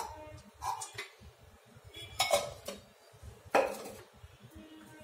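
Stainless-steel kitchenware clinking: a steel spoon and steel containers knocking against each other and the pot in a few separate clinks. The loudest come about two and a quarter and three and a half seconds in.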